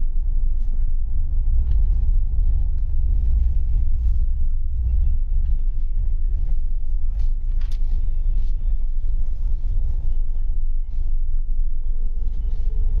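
Steady low rumble of a bus driving along a road, its engine and road noise heard from inside the passenger cabin, with a few faint clicks and rattles.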